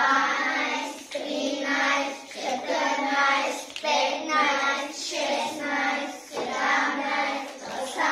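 A class of young children singing together in unison, in short phrases of about a second each.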